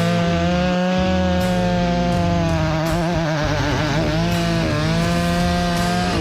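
Two-stroke chainsaw running at high speed while cutting sycamore. Its pitch wavers and dips briefly under load in the cut, then falls away at the very end.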